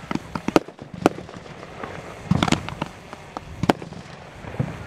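Fireworks going off: a string of sharp bangs and pops at irregular intervals, with a quick cluster of crackling pops about halfway through.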